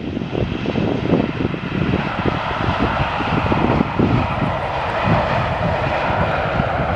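Jet engines of a KLM airliner on the runway, a steady roar with a hissing whine that grows stronger a couple of seconds in. Wind gusts rumble on the microphone underneath.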